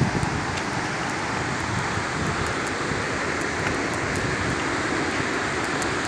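Steady rushing of a tall waterfall, an even noise with no breaks.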